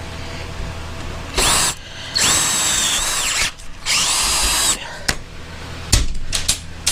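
Electric drill boring a hole in a metal bar wetted with Tap Magic cutting fluid, run in three bursts. Its whine climbs as the motor spins up and drops as it stops. A few knocks follow near the end.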